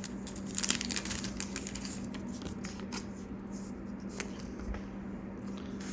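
Trading card being slipped into a plastic card sleeve and handled: light crinkly rustling, busiest in the first couple of seconds, then a few soft clicks and taps.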